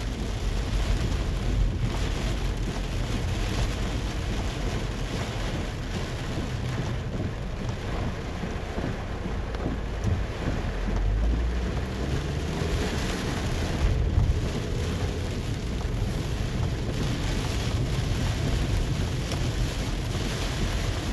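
Heavy rain drumming on a car's roof and windshield, heard from inside the cabin, as a steady hiss over a low rumble that swells about ten seconds in. There is a brief louder knock about fourteen seconds in.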